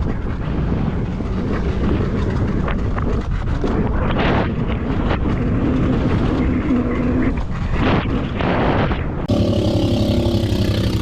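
Honda CRF110 pit bike's small single-cylinder engine running while being ridden, buried under heavy wind on the microphone. About nine seconds in the sound cuts abruptly to a clearer, steadier engine note with a pulsing beat.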